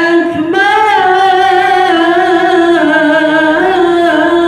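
A man singing solo and unaccompanied, holding long notes that bend and waver in pitch, with a short break for breath about half a second in.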